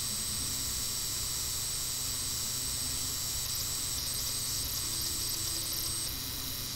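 Steady hiss with a low hum and faint high-pitched steady tones: a recording's background noise. The high part eases slightly near the end.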